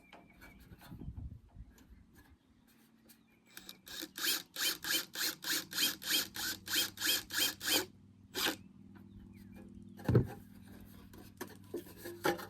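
Rapid back-and-forth rasping strokes of a hand tool, about four a second for some four seconds, then one more stroke and a single sharp knock a little later.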